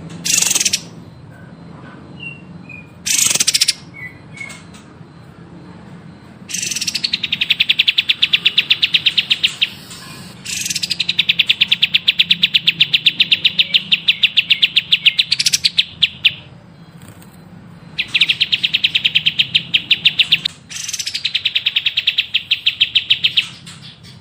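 Caged songbird singing: a couple of short sharp calls, then long, very fast trills repeated four times, each running for several seconds with short pauses between. A faint steady low hum underneath.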